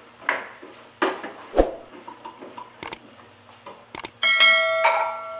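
Wooden spatula scraping and knocking against a pan of sautéing pork and vegetables, a few strokes in the first two seconds. Then two pairs of sharp clicks and a loud ringing bell chime, the sound effect of a subscribe-button animation.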